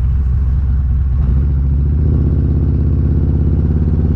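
Harley-Davidson Road Glide Special's Milwaukee-Eight V-twin engine running under way. Its note grows fuller about halfway through.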